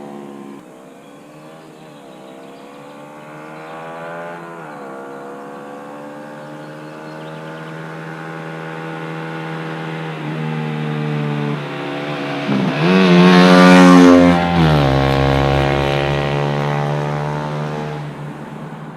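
KTM Duke 125's single-cylinder engine through a Radical Racing full exhaust with the stock dB killer fitted, accelerating through two gear changes as the bike approaches. It is loudest as it passes, about three-quarters of the way in, where the pitch drops, then fades as it rides away.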